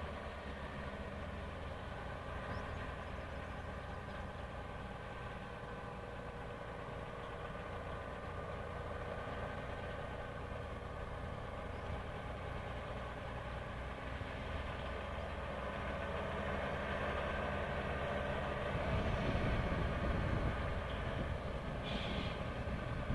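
Engine of a homemade logging truck running steadily, growing louder with a heavier low rumble near the end.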